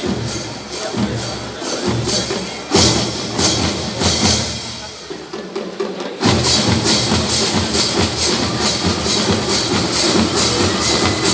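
Marching band (fanfarra) playing a carimbó-style piece, with a steady, even percussion beat. A loud hit comes about three seconds in, the band thins out, then comes back in full about six seconds in.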